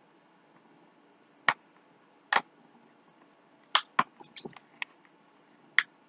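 A snack package being handled: a scattering of sharp clicks and crackles, bunched together about four seconds in, with a faint high squeak among them.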